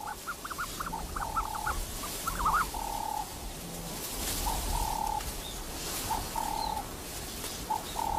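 Ostrich chicks peeping: quick runs of short high chirps mixed with brief steady whistled notes, repeating every second or so.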